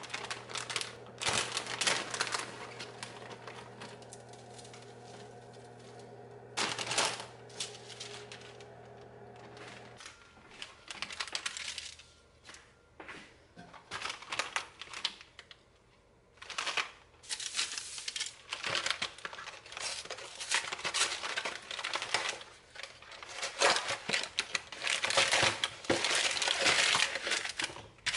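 Paper and plastic food packaging being handled, crinkling and rustling in irregular bursts, including a cardboard box and plastic-wrapped frozen arepas near the end. A steady low hum runs under the first ten seconds and cuts off suddenly.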